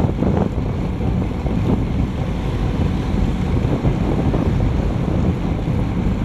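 Wind buffeting the action camera's microphone as a road bike rides at about 35 km/h, a steady low rumble.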